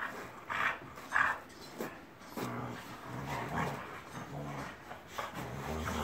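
Two boxer dogs play-fighting, growling and grumbling at each other in repeated low pulses, with two short sharp yaps about half a second and a second in.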